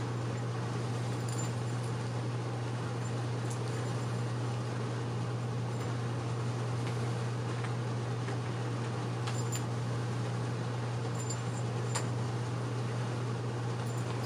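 Steady low hum over a constant background hiss, with a few faint, light clicks scattered through.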